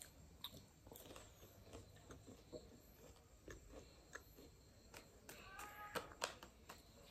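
Faint, close-up chewing of the chocolate-filled tip of an ice-cream cone, with soft crisp crunches and small mouth clicks scattered through.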